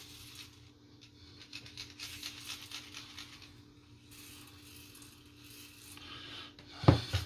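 Small clicks and light rattling of a phone's parts and tools being handled on a work surface, with one sharp knock near the end.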